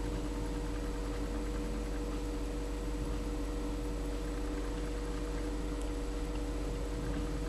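Steady room tone with a constant low electrical hum and a few faint steady higher tones, unchanging throughout.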